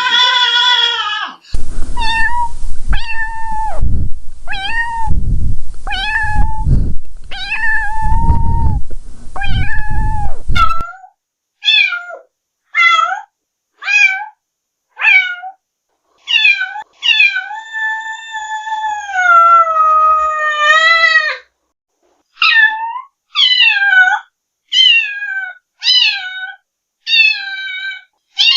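Cat meowing over and over, roughly one meow a second, each call falling in pitch, with one long drawn-out meow about two-thirds of the way through. A low rumbling noise sits under the first several meows, then drops away.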